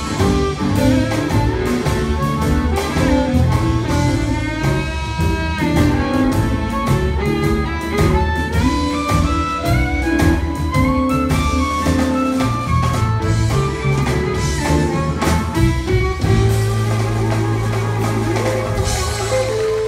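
Live blues band playing, with guitar and drum kit, and pitched notes bending up and down. Over the last few seconds it settles on a long held low note.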